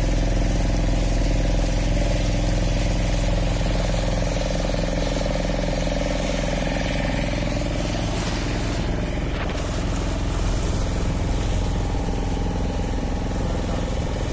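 Engine of a small fishing boat running steadily at one pitch as the boat moves along, with water rushing along the hull.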